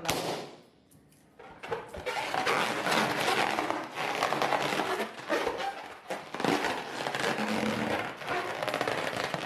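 A balloon bursts with a sharp bang at the start, another pops about two seconds in, then a long stretch of dense crackling and crinkling as the balloons are handled and burst.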